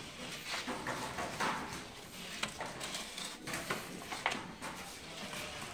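Wooden cake trays scraping and knocking on the floor of a brick bakery oven as they are pushed in with a long pole, with irregular knocks about a second apart.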